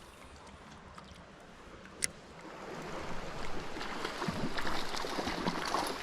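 Creek water running, with a single sharp click about two seconds in; from about halfway the water turns louder and choppier, splashing and sloshing close by.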